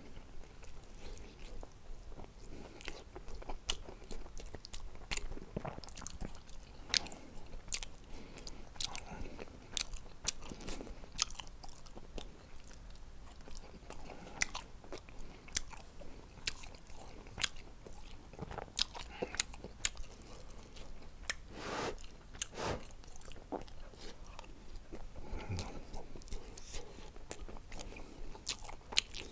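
A person chewing a mouthful of gochujang-seasoned dried shredded squid, with many irregular sharp mouth clicks and smacks.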